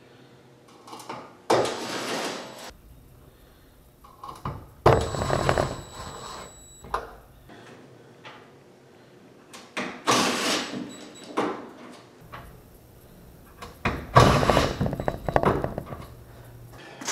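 Cordless drill run in four short bursts, each one to two seconds long, working into the sheet-metal tail panel.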